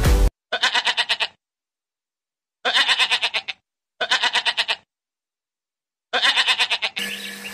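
Bleating: four wavering calls, each under a second long, with gaps of silence between them.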